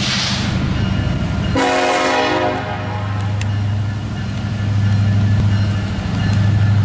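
EMD SD70ACe locomotives' two-stroke diesel engines running with a steady low drone as the coal train rolls slowly ahead. A brief hiss comes at the start. About a second and a half in, a locomotive horn sounds for about a second, the warning for the grade crossing.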